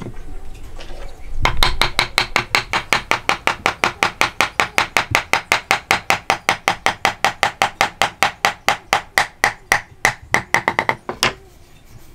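A hammer tapping on the assembled hardwood mitered dovetail joint in a fast, even run of sharp taps, about four to five a second, that turns uneven and stops near the end.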